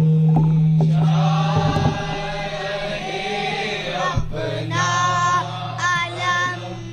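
A group of young men and boys chanting a Shia noha (mourning lament) together, with a steady low note held beneath the voices.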